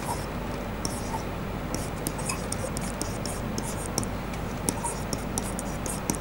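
A pen scratching across an interactive whiteboard while words are written by hand: a quick series of short, high scratchy strokes over a steady low room hum.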